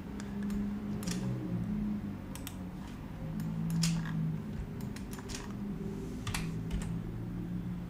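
Computer keyboard keystrokes, tapped one at a time at irregular intervals, as Blender shortcut keys are pressed.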